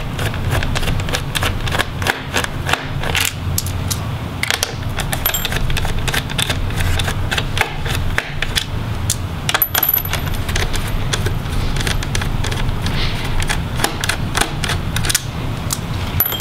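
Phillips screwdriver backing out the screws of an Acer Nitro 5 laptop's bottom cover: a run of irregular sharp clicks and small metallic clinks, with a brief high ring about ten seconds in and again at the end, over a steady low hum.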